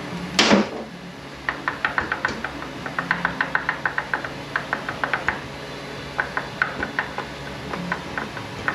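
A single metal clank about half a second in, then a hand ratchet clicking in quick, even runs as bolts are turned out, with a short pause in the middle.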